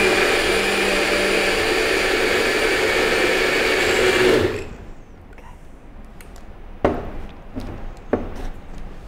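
NutriBullet personal blender running steadily as it blends a frozen-fruit smoothie, then stopping about four and a half seconds in. A few light knocks follow as the cup is handled on the base.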